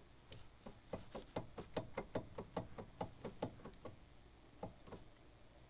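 Light metallic knocks from a Dodge Neon SRT-4's front wheel hub being rocked by hand, about four or five a second, pausing briefly before two last knocks near the end. The knocking is the play in a wrecked wheel bearing, which the owner finds is the cause of the car's clunking.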